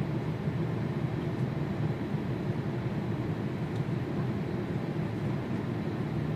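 Steady low rushing drone of an airliner cabin in flight: engine and airflow noise with no distinct tones.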